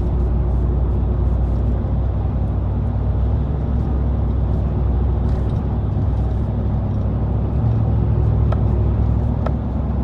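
Steady low road and drivetrain hum inside a GM 1500 pickup's cab while driving, with no wheel-bearing drone: the newly fitted Kryptonite wheel bearings run quiet.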